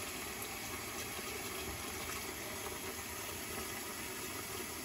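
Kitchen faucet running a thin, steady stream of water into a stainless steel pot already full of water and chicken wings.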